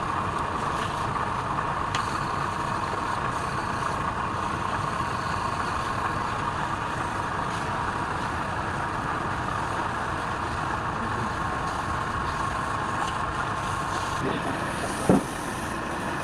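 Wood lathe running steadily with a constant whine. One short sharp sound comes near the end.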